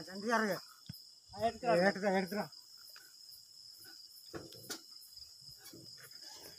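Crickets chirping in a steady, high, continuous trill, with short bursts of voices over it in the first two and a half seconds.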